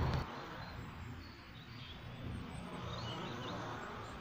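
Outdoor ambience: a loud low rumble cuts off just after the start, leaving a steady low background in which small birds chirp faintly several times through the middle.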